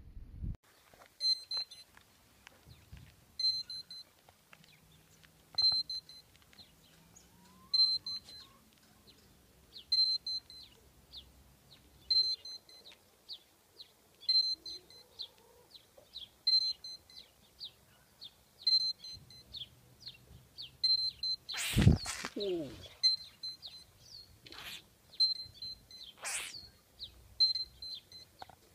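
Australian barking gecko calling: short high chirps repeating about once a second, then three louder, sharp barks about three-quarters through, the first the loudest.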